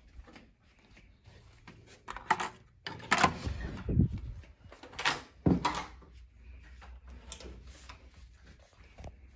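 A hotel room door being unlocked and opened: a cluster of sharp clicks and clunks from the latch and handle, with a couple of heavy low thumps from the door, starting about two seconds in and settling down by about six seconds.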